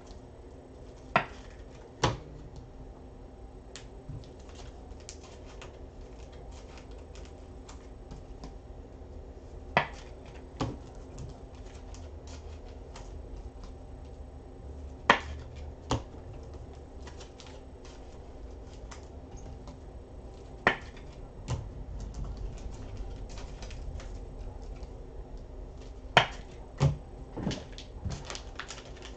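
Scattered sharp clicks and knocks of small hard objects being handled and set down on a desk, over a low steady hum. The taps come irregularly, a few seconds apart, and grow more frequent near the end.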